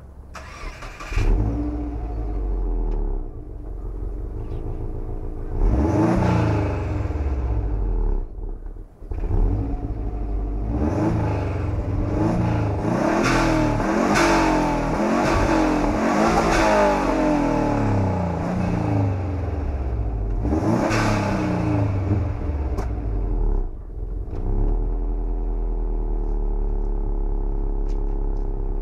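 Exhaust of a 2008 Subaru Impreza WRX's turbocharged flat-four engine. It comes up loudly about a second in and idles, then is revved again and again through the middle with rising and falling blips, and settles back to a steady idle near the end.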